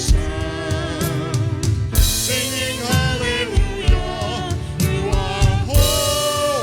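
Gospel-style worship music: voices singing held, sliding notes over a band, with a drum kit keeping a steady beat and cymbal crashes about two seconds in and again near the end.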